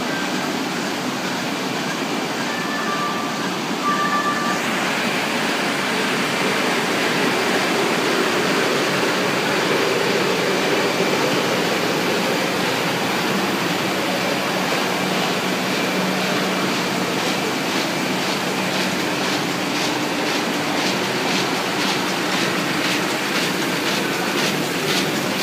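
Komori Lithrone L540 five-colour sheetfed offset press running: a loud, steady mechanical clatter of the printing units. A few short electronic beeps sound about three seconds in, and a regular clicking joins in after about eighteen seconds.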